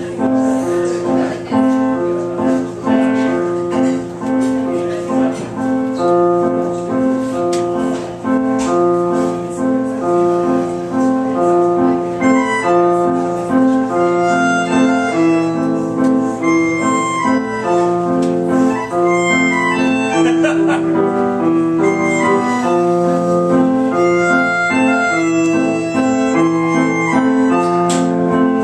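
Instrumental music led by a keyboard, playing a steady repeating pattern of sustained notes over a low bass line.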